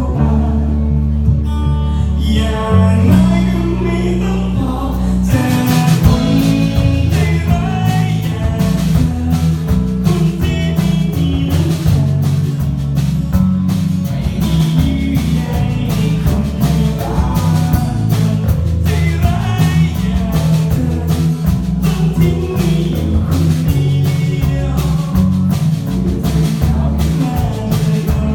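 Live song: guitar over sustained bass notes, with a man singing, the strummed rhythm becoming denser about five seconds in.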